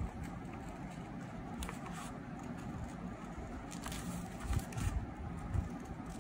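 Scissors cutting through paper in several short snips, over a steady low rumble.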